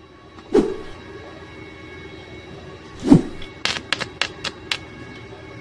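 Stick electrode on a Makita MMA-400 inverter welder, set to 150 amps, being scratched against a rusty steel pipe to strike an arc: a couple of knocks as it touches, then a quick run of sharp crackles as the arc catches and sputters in the second half.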